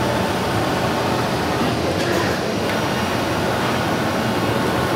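Flatbed CNC cutting machine running as it cuts a white sheet, a steady loud mechanical hum and rush.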